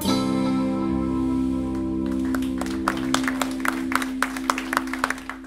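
Instrumental guitar band (electric lead and rhythm guitars, bass, drums) holding its final chord, which rings on and fades out near the end. From about two seconds in, scattered hand claps from a small audience join it.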